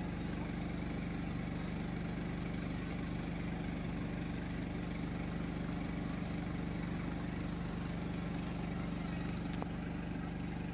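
A motor running steadily with a constant low hum, over an even rushing noise.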